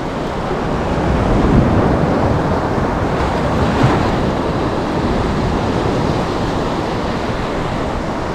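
Choppy surf washing and lapping around a wading angler, mixed with wind buffeting the microphone; the rush swells louder a couple of times.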